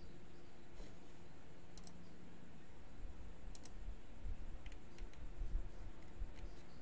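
A handful of scattered computer mouse clicks, spread over several seconds, over a faint steady low background hum.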